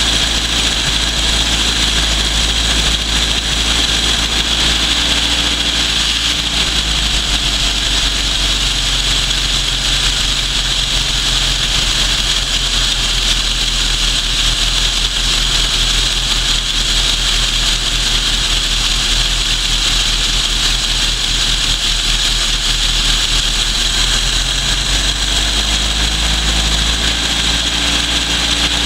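1979 Toyota 20R 2.2-litre four-cylinder engine idling cold, with the air cleaner off the carburetor. The engine speed sags about six seconds in and picks back up near the end.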